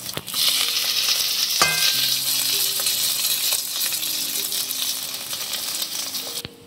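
Egg poach sizzling loudly in hot oil in a very hot metal kadai, starting just after the egg is flipped over with a steel spatula. There is a click at the very start and a short metallic clink about one and a half seconds in, and the sizzling cuts off suddenly near the end.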